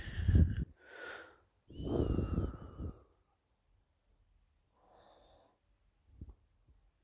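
A sleeping person snoring: a loud snort in the first half-second, a weaker breath, then a long snoring breath about two seconds in with a thin whistling wheeze on top. A few quieter seconds follow, with only a faint breath.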